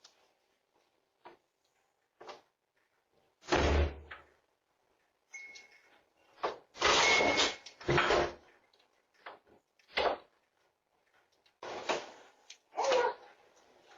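A door slammed over and over in an angry fit: a series of loud bangs with quiet gaps between them. One heavy thud comes about three and a half seconds in, the loudest run of bangs comes around seven to eight seconds in, and smaller knocks follow later.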